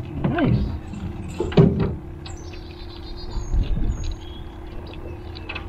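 Birds chirping in short, high notes over a steady low hum, with two loud wordless vocal sounds from a man in the first two seconds.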